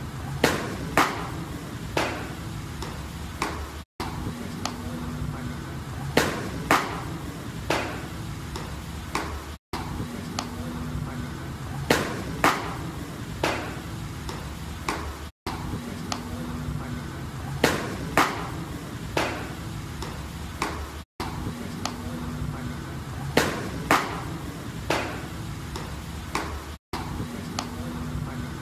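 Hard fastballs smacking into catchers' mitts: two sharp pops close together, then a third about a second later, over a steady background. The same few-second sequence repeats about every six seconds, each repeat broken by a brief dropout.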